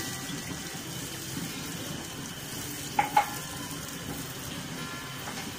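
A cup of water poured into a hot frying pan of oil-fried spices, sizzling steadily as it hits the oil. Two sharp taps about three seconds in.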